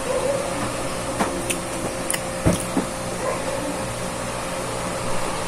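Steady hum of an electric fan, with a few short clicks between one and three seconds in and a louder knock about two and a half seconds in.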